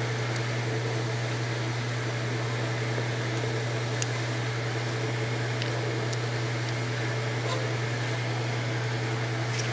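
A steady low hum with a few faint light clicks as a wire paperclip is pushed into the plastic connectors of a Ford EEC-IV diagnostic test plug.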